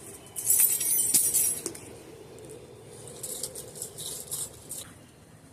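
A bunch of keys jingling: a loud shake lasting about a second, starting about half a second in, then a few lighter jingles and clinks later on.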